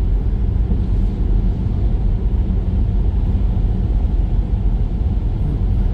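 Steady low rumble of a car travelling at highway speed, tyre and engine noise heard from inside the cabin.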